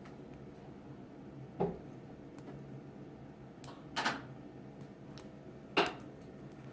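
Faint clicks and ticks of a half-diamond pick and tension wrench working the pin stack of a brass padlock, with three sharper clicks spread a couple of seconds apart.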